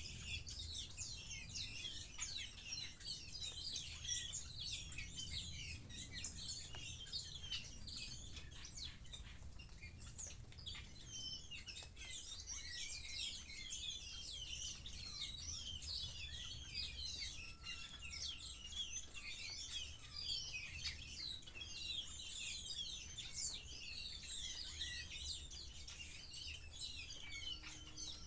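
Many small birds chirping and twittering without pause, over a steady background of falling rain with scattered drop ticks.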